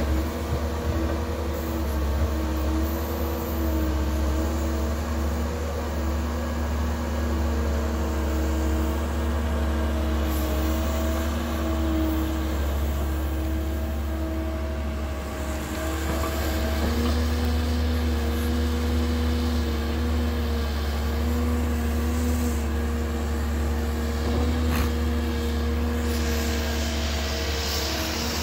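Caterpillar 308 mini excavator's diesel engine running steadily while it digs and swings, its hydraulics working; the steady engine tone drops a little in pitch about two-thirds of the way through.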